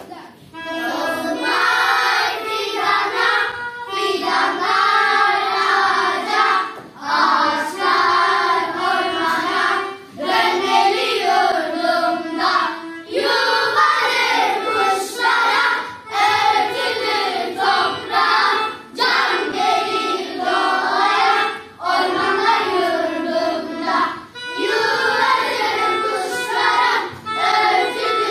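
A group of young children singing a song together, in phrases a few seconds long with short breaks between them.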